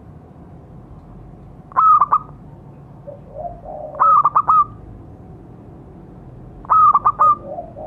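Zebra dove (perkutut) singing: three short phrases of rapid, staccato coos, each three or four quick notes, about two and a half seconds apart, with softer, lower coos after the second and third phrases.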